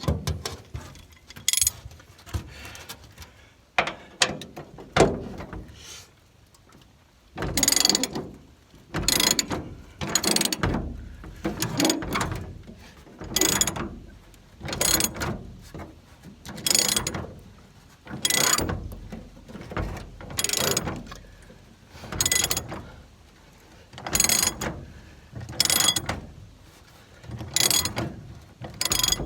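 Hand ratchet wrench turning a T55 Torx bed bolt on a Ford Ranger: a few scattered clicks, then from about seven seconds in repeated bursts of pawl clicking, about one stroke every second and a half.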